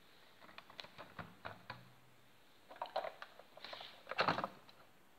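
Clicks and light knocks of vintage toy cars being picked up, turned over and set down on a hard tabletop. There is a scatter of small clicks at first, a cluster near three seconds, and the loudest clatter about four seconds in.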